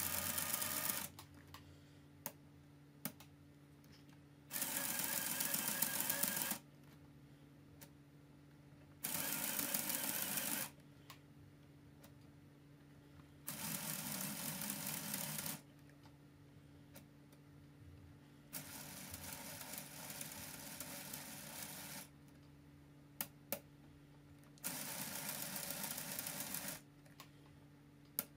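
LEGO Technic 42110 Land Rover Defender drivetrain whirring and clattering, its plastic gears and engine pistons turning as the wheels are spun. This happens in six runs of two or three seconds each, and between runs there are a few single clicks as the gearbox is shifted.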